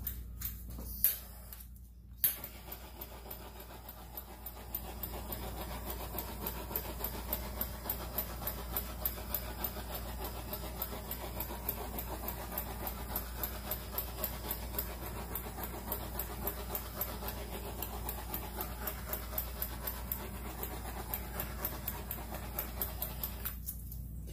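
Small handheld blow dryer blowing over wet acrylic paint. It switches on with a click about two seconds in, runs steadily with a faint regular pulsing, and cuts off just before the end.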